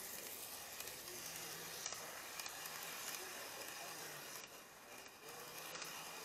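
N-gauge model train camera car running along the layout track: a steady, quiet hiss of small wheels rolling on rail, with faint voices murmuring in the hall.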